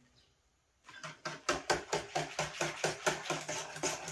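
Wire whisk beating liquid in an enamel bowl: a fast, even run of clicks and splashes, about five strokes a second, starting about a second in.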